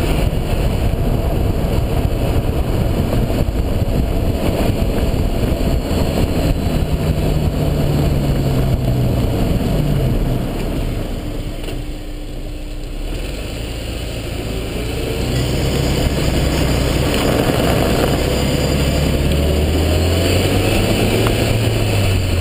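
A Honda S2000 being driven, its four-cylinder engine running under road noise, with the engine note rising and falling. The sound dips for a few seconds about halfway through, then builds again.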